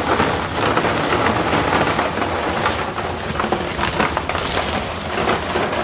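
Softener salt pouring into the brine tank of a whole-house water softener: a dense, steady hiss of many small grains and pellets clattering.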